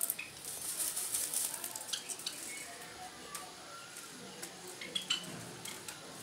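Irregular light clicks and clinks from a black francolin moving about in its wire cage, with a scratchy rustle from about half a second to a second and a half in.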